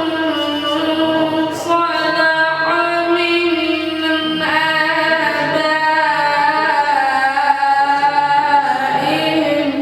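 A male reciter chanting Quran verses in melodic tajwid style. He holds long drawn-out notes with ornamented runs, and the phrase ends right at the close.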